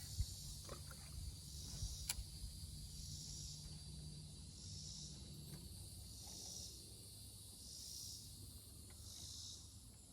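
Faint chorus of insects, a high buzzing that swells and fades in a slow rhythm, about once every second and a half. There are two sharp clicks, one near the start and one about two seconds in.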